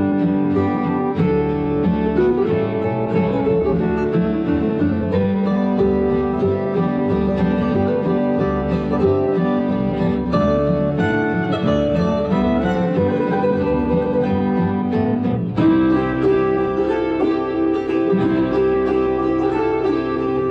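Instrumental music led by a plucked acoustic guitar, playing steadily, with a brief dip about fifteen seconds in as a new passage starts.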